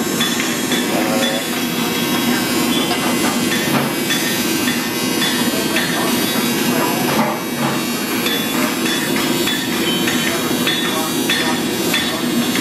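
Metal-shop din: a steady buzzing hum with scattered metallic taps and knocks.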